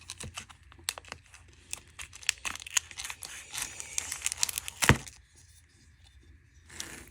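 Packaging being torn open and crinkled by hand, a run of crackling rustles. A sharp knock comes about five seconds in, then the rustling quiets.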